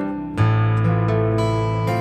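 Slow ballad music led by a steel-string acoustic guitar. A new chord is struck about half a second in, with a low bass note held beneath it.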